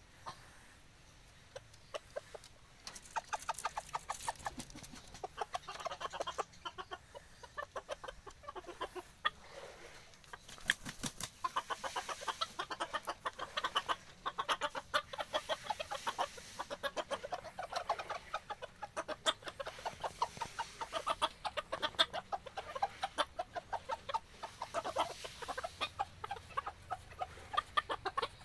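Bantam chickens clucking: a few scattered clucks at first, then a steady run of quick, repeated clucks from about three seconds in.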